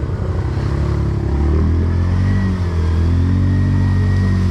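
ATV engine running under throttle, its note steadying and getting louder about a second and a half in, then holding.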